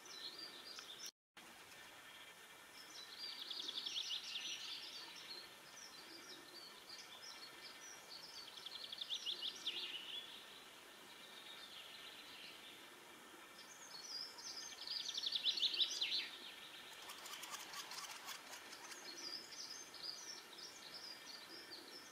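Eurasian three-toed woodpeckers calling in a territorial dispute: high, rapid chattering trills, three louder ones spread through, with shorter calls in between. Near the end comes a quick run of sharp clicks.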